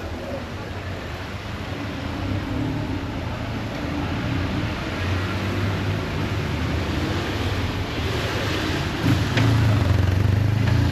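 Street traffic: a motor vehicle's engine runs with a low hum that grows louder as it draws near, loudest near the end, with a sharp click about nine seconds in.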